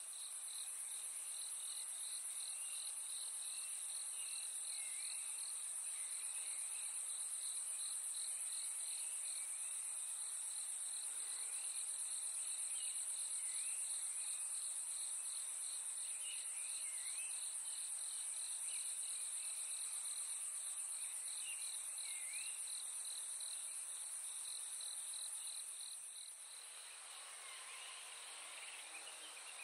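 Insects calling at dusk in forest: a steady high-pitched drone with a fast pulsing trill under it, and short chirps scattered through. The pulsing trill stops near the end.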